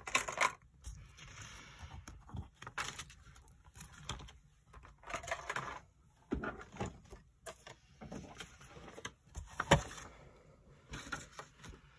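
Craft-table handling noise: paper sliding and rustling, and a plastic envelope punch board being picked up and set down on a craft mat, with scattered light knocks and clicks, the sharpest knock a little before the end.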